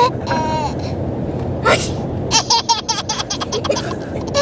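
A boy sneezing, "achoo", about halfway through, with a baby laughing in quick bursts around it.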